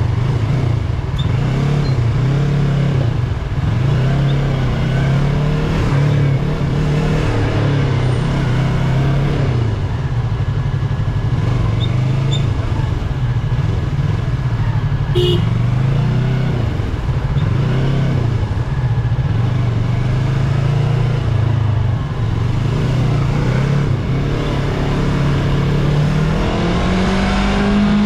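Yamaha YZF-R3's parallel-twin engine with its stock exhaust, ridden at low revs, its note wavering up and down, then climbing in pitch near the end as the bike accelerates.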